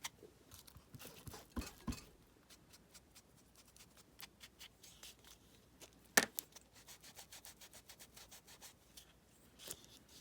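Ink dauber rubbing and dabbing ink onto the edges of paper and card, with scattered light taps and one sharper knock about six seconds in.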